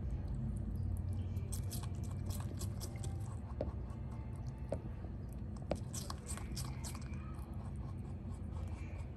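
A rabbit chewing a piece of fruit: quick, crisp crunching in two spells, one starting about a second and a half in and another about six seconds in, with a few single ticks between them.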